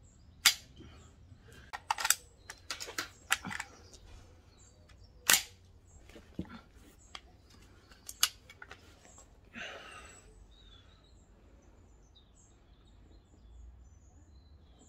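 Rifle shots: two loud sharp cracks about half a second in and again about five seconds in, with a run of smaller sharp clicks and snaps between and after them.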